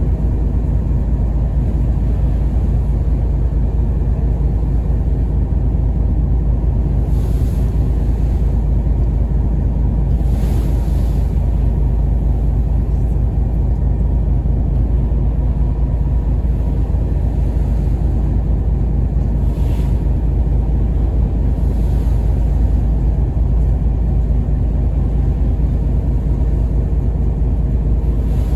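Ferry's engine rumbling steadily, heard on board while under way. Faint short hisses, like wind or water, rise a few times over the rumble.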